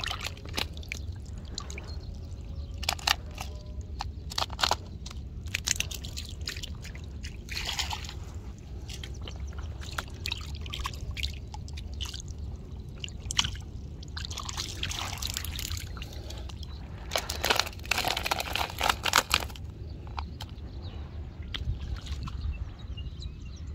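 Water splashing and sloshing in irregular bursts, with the longest run of splashing about three-quarters of the way through, over a steady low rumble.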